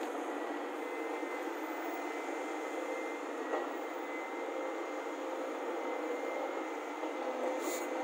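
Heavy diesel earthmoving machinery running steadily: a Volvo crawler excavator working beside idling Tata tipper trucks, with a faint engine drone and no deep rumble. There is a short hiss near the end.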